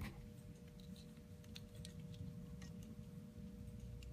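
Faint, irregular small clicks of metal tool parts being handled: a collet being worked off and onto a rivet removal tool.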